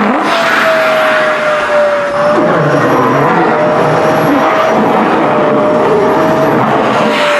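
SHARP EC-KP7F-A vacuum cleaner running steadily with a high motor whine, sucking at a flared skirt's fabric. The whine dips slightly in pitch near the start and again about two seconds in, with some uneven low rumble in the middle.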